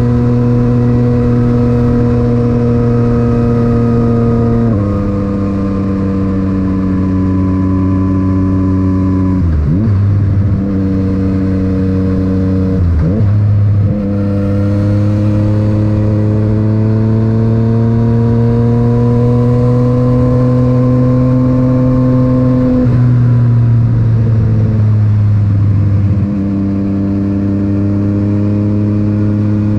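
Yamaha MT-09's three-cylinder engine through an Akrapovic titanium exhaust, heard from the rider's position while riding. It pulls steadily through the gears: its pitch drops at several gear changes, with brief dips about ten and thirteen seconds in, and rises slowly in the middle.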